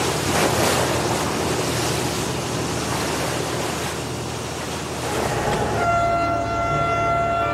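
Water rushing and splashing along the hull of a moving boat, over a steady low engine hum. About five seconds in, music enters with long held chord tones.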